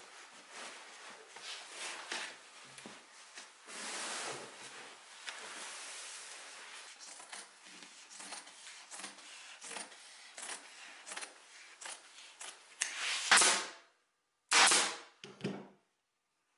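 Upholstery fabric rustling and rubbing as it is pulled and smoothed over a chair seat, with scissors snipping through the cloth. A few louder rustles come near the end, broken by short gaps of dead silence.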